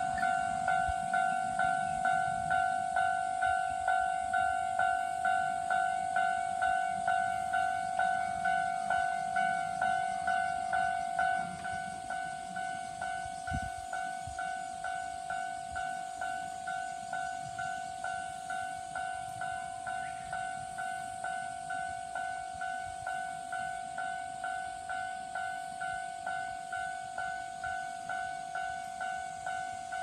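Japanese railway level-crossing warning bells ringing their repeated electronic 'kan-kan' tone, about three strikes every two seconds, as the crossing closes and the barriers come down for an approaching train. The ringing drops to a quieter level about eleven seconds in.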